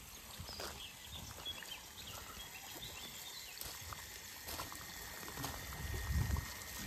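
Footsteps crunching on a gravel path, about one a second, with birds chirping and the splash of a garden fountain's water jet behind them.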